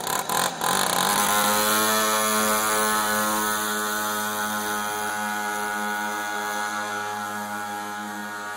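Pocket bike's small two-stroke engine running at a steady, buzzing pitch as the mini motorcycle pulls away, growing gradually fainter as it rides off. A couple of sharp clicks come just before the engine note settles in.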